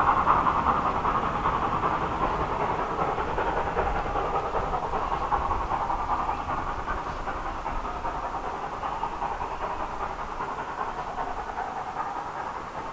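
Steam train running out of sight, its sound fading steadily as it draws away.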